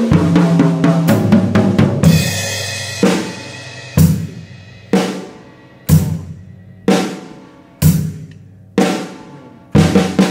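Acoustic drum kit: a fast paradiddle fill across the snare and toms, landing on a cymbal crash about two seconds in that rings for about a second. Then single hits about once a second, each ringing out, before the fast sticking starts again near the end.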